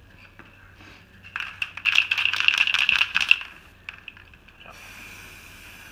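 Aerosol spray-paint can shaken hard, its mixing ball rattling in fast clicks for about two seconds. Near the end the spray hiss of a can starts again as paint is sprayed onto the water.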